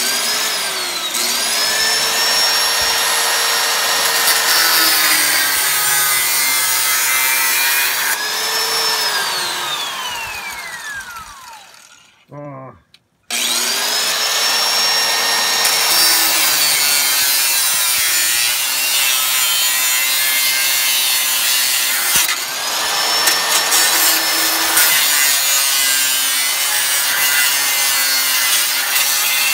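Corded angle grinder with a cut-off disc cutting through a car's exhaust pipe: a high motor whine that sags each time the disc bites into the metal and recovers when it eases off. About ten seconds in it is let off and winds down with a falling whine, then starts again about a second later and cuts on.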